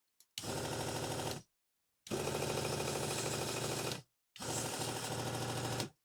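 Small electric motor of a mini desktop sanding machine switched on in three short runs with a stop between each, about one, two and one and a half seconds long. Each run has a fast, even rattle and starts and stops abruptly.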